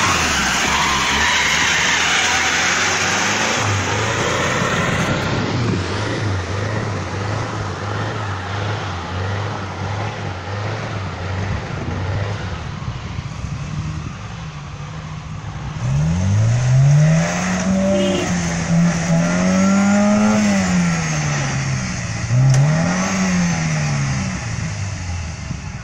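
Off-road 4x4 engines revving hard in mud. At first a close vehicle passes with its wheels spinning and throwing mud. From about two-thirds of the way through, an engine is revved up and down several times, its pitch rising and falling.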